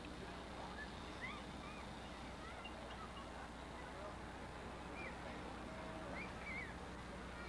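Faint crowd ambience: scattered short snatches of distant voices over a steady low electrical hum.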